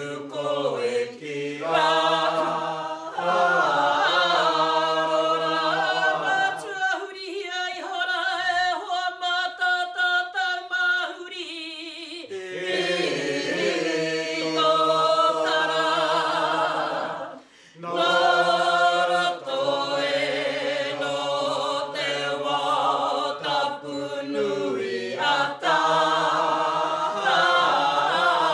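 A group of men and women chanting a Tūhoe mōteatea, a traditional Māori sung chant, together without instruments. About seven seconds in, the lower voices drop out for a few seconds, leaving the higher voices. There is a brief break about seventeen seconds in before the full group sings again.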